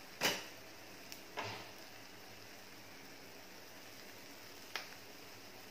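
Toasted pav buns being picked up out of a nonstick frying pan of garlic butter: two short knocks in the first second and a half and a light click near the end, over a faint steady hiss of the butter sizzling.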